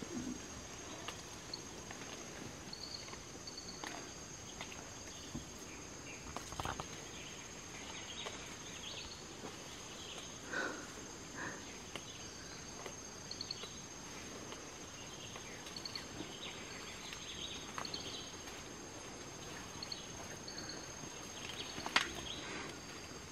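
Rainforest ambience: a steady high-pitched insect drone with short, repeated high chirps, and occasional brief rustles and snaps in the vegetation, the sharpest one near the end.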